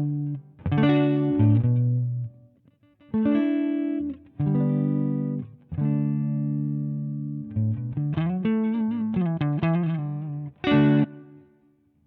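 Electric guitar played through a Zander Circuitry Surplus overdrive pedal: phrases of single notes and chords with short gaps and a held low note in the middle, then a quick run of notes. It ends on a loud struck chord that rings out and fades away.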